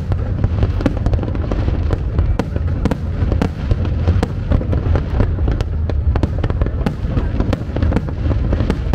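Aerial fireworks going off in a dense, continuous barrage of bangs and crackles over a low rumble.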